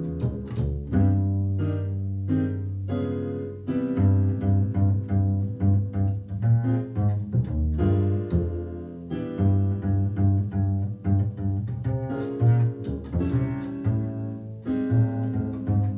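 Instrumental music: a low string bass line under piano chords, played in a steady rhythm of short notes.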